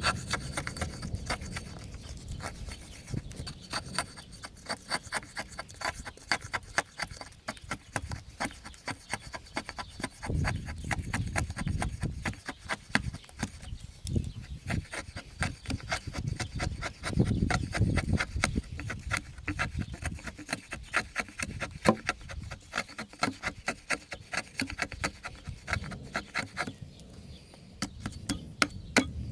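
A knife blade drawn again and again along a Gossman sharpening steel: a long run of short metal-on-metal strokes, several a second.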